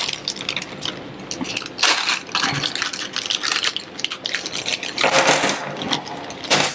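Small metal screws and mounting hardware clinking and rattling as they are handled, in irregular bursts, with a longer rattle about five seconds in.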